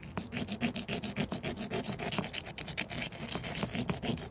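A piece of quahog shell rubbed back and forth on a granite stone, a run of quick, even scraping strokes. The stone is grinding the rough outer rind off the shell to smooth it, like sanding.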